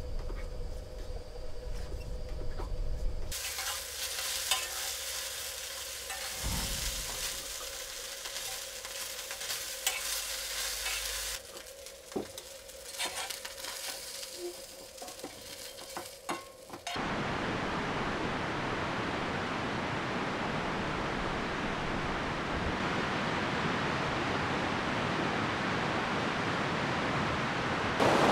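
Sausages sizzling in a frying pan on a small gas-canister stove, with clicks and scrapes of a spoon stirring them. About 17 seconds in, this cuts off suddenly and gives way to a steady rushing of river rapids.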